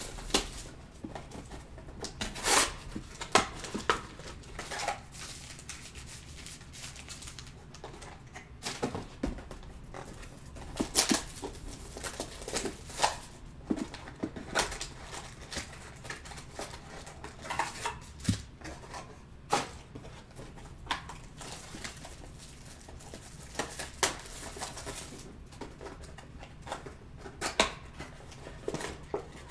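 Sealed trading-card boxes and their foil packs being unwrapped and handled: plastic shrink-wrap crinkling and tearing, with cardboard boxes and packs tapped and shuffled, heard as irregular sharp crackles and taps.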